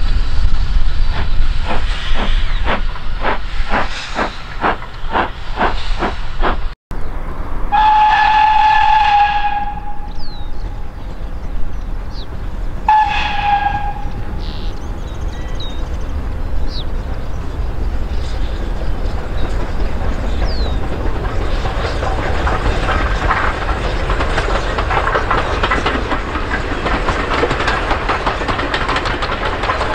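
Heritage steam locomotive working, with even beats about two a second. Then its whistle sounds twice, a long blast and a shorter one. A rushing hiss and rolling train noise build near the end.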